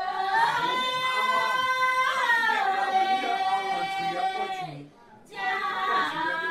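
Women singing in the Dai language, unaccompanied, holding long high notes. The melody steps down about two seconds in, breaks off briefly for a breath near five seconds, then starts again.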